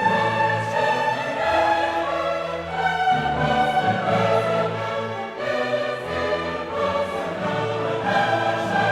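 Classical choral music with orchestra: voices singing long held notes that change pitch about once a second.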